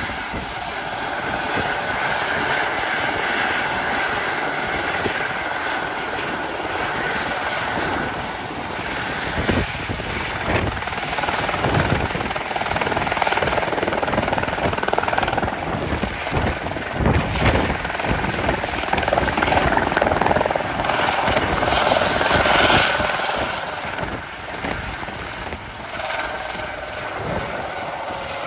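A light single-engine helicopter with an enclosed tail rotor runs up on the ground: a steady turbine whine with rotor chop, growing louder. In the last few seconds it lifts off and pulls away, and the sound grows fainter.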